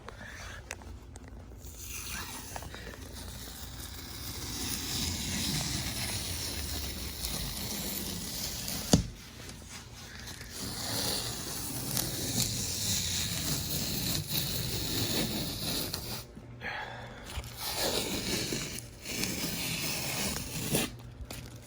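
Masking tape being peeled slowly off a painted surface, a long crackling, tearing scrape that pauses and restarts a few times near the end. A single sharp click about nine seconds in.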